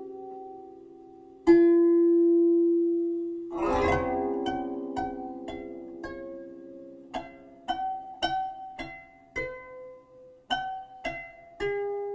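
Background music: a slow melody of plucked-string notes, each ringing and fading, with a fuller strummed chord about three and a half seconds in.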